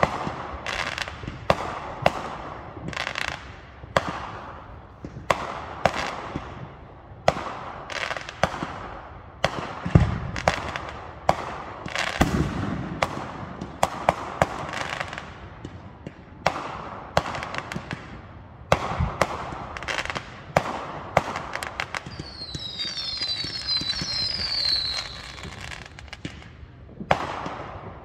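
Aerial fireworks going off in a rapid string of sharp bangs with crackling, a few deeper booms among them. Near the end a run of short whistles falls in pitch.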